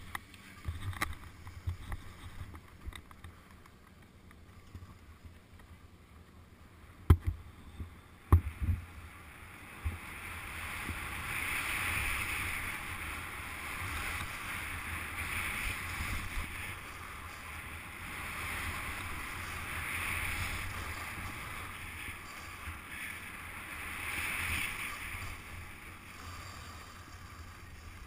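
Skis sliding and hissing over snow, swelling and fading with each turn, over a low wind rumble. Two sharp knocks come about seven and eight seconds in, before the hissing sets in.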